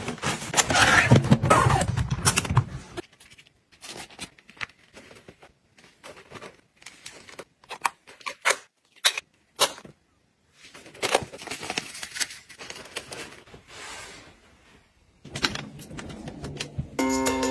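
Packing sounds: rustling of clothes and plastic packing bags at first, then a string of small clicks and taps as plastic cosmetic cases, a powder compact and a lipstick, are handled. Music starts just before the end.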